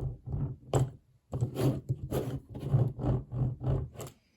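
Diecast toy monster truck being handled: a quick run of rubbing and knocking noises in short bursts, with a brief pause about a second in.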